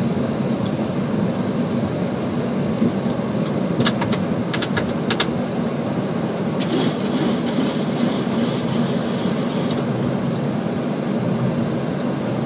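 Boeing 737 flight deck during the landing rollout: a steady low rumble of the engines at idle and the wheels running over the runway. A few sharp clicks come about four to five seconds in, and a hiss lasts about three seconds in the middle.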